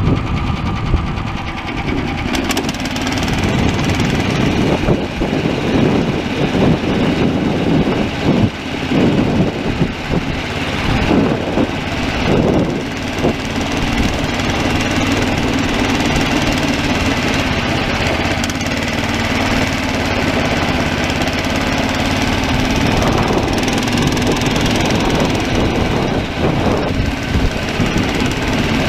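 Small gasoline engine of a SnowDog tracked snow machine running steadily as it tows across grass. Knocks and rattles come through during the first half, and the running evens out after about halfway.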